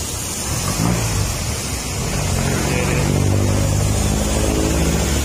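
Road traffic on a wet street: a truck engine running and growing louder from about halfway through as it approaches, over a steady hiss of tyres on wet asphalt and rain.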